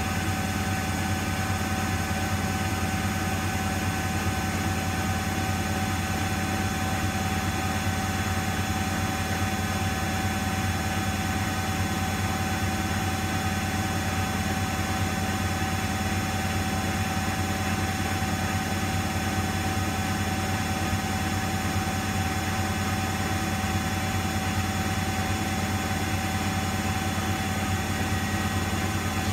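Miele front-loading washing machine running its drum at a steady speed: a constant motor whine over a low, even rumble, with no change in pitch or level.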